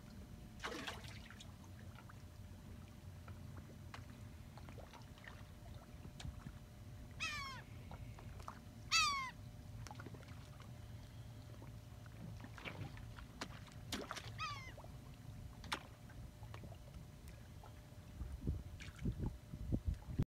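Faint, quiet night background with three short animal calls that fall in pitch, spaced a few seconds apart, the second one loudest. A few light knocks come near the end.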